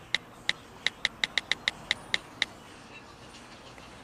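Smartphone keyboard clicks: an uneven run of about a dozen short ticks as a message is typed, stopping about two and a half seconds in.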